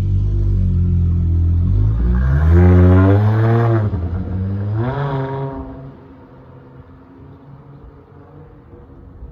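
Dodge Charger SXT's V6 exhaust through Flowmaster Outlaw mufflers: a steady low rumble, then two revs that rise and fall back about two and four seconds in. After that it drops to a much quieter rumble.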